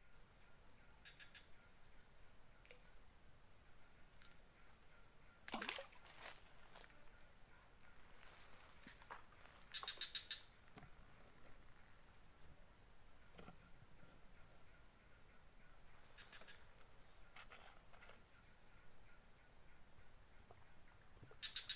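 Steady high-pitched drone of insects, with a few short high chirps now and then and a couple of brief knocks or rustles about six seconds in.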